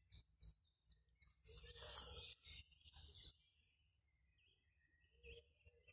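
Woodland birds faintly singing and chirping, with a brief rustle about one and a half seconds in.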